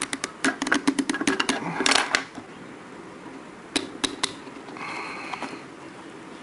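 Scissor tips clicking and scraping against the metal front ring of a 135mm prime lens as it is worked loose, the ring stuck on a dented thread. A rapid run of sharp clicks fills the first two seconds, three more follow about four seconds in, then a brief faint scrape.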